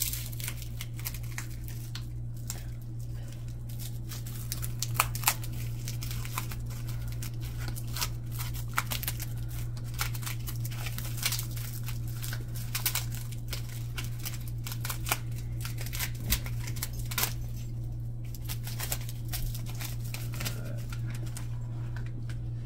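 Wrapper of a 1991 Pacific Pro Football trading-card pack being peeled open and the cards handled: irregular crinkling and sharp crackles, heaviest in the middle, over a steady low hum.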